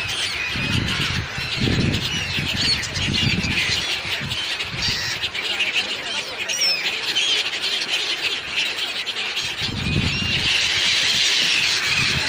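Many birds chirping at once in a dense, continuous chorus of short high calls, with lower, harsher squawks in the first few seconds and again about ten seconds in.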